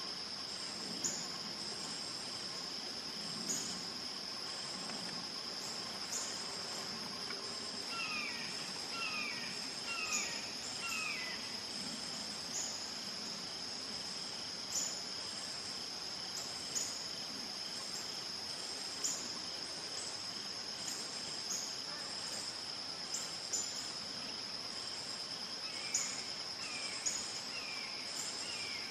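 Steady high-pitched drone of an insect chorus, such as crickets, with short high chirps every second or two. A faint run of four or five short descending calls comes about eight seconds in and again near the end.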